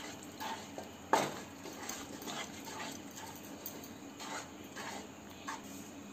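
Wooden spatula stirring and scraping a thick milk-powder mixture in a kadhai: quiet, irregular scrapes and light knocks, with one sharper knock about a second in.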